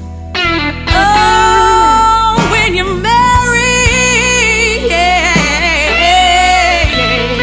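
Slow blues music: a sustained melody line with vibrato and bending notes over guitar and a steady bass.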